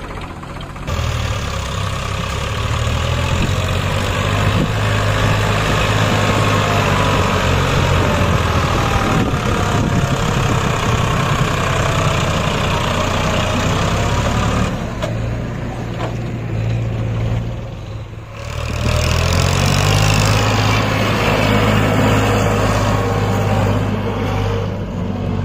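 Tractor diesel engine running hard under load while hauling a loaded trolley, a steady low engine note. The sound briefly eases about 15 seconds in, dips near 18 seconds, then comes back as strong.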